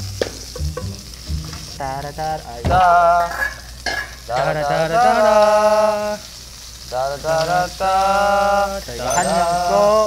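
Male voices humming and singing a wordless tune in several long phrases of held, gliding notes, over the steady sizzle of lamb frying in a pan.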